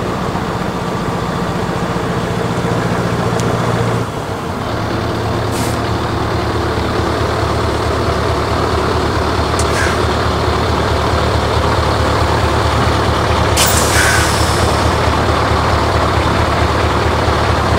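Scania 143M 450's V8 diesel engine running at low speed as the truck and trailer pull slowly forward. The engine note dips about four seconds in, then runs steady. Three short hisses of air are heard, the longest about three quarters of the way through.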